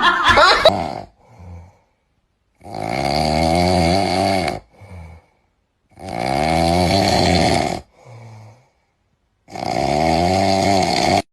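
Loud snoring: three long, rattling snores of about two seconds each, with short, quieter breaths between them.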